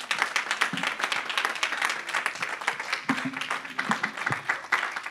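Congregation applauding, a dense patter of many hands clapping, with a voice calling out briefly about three seconds in.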